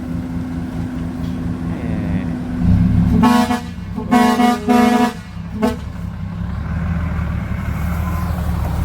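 Hino six-wheel dump truck's diesel engine running, with its horn tooted: one longer toot about three seconds in, then a quick run of short toots.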